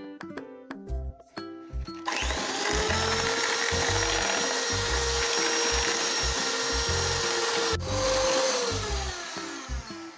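Electric hand mixer starts about two seconds in, its beaters running through eggs and sugar in a plastic bowl with a steady motor whine. Near the end the whine drops in pitch and fades as the mixer winds down.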